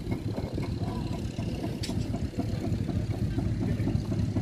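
An engine idling steadily, with faint voices in the background.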